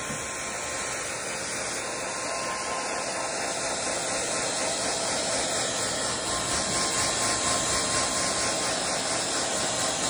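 Hair dryer blowing steadily, a rushing hiss that grows gradually louder.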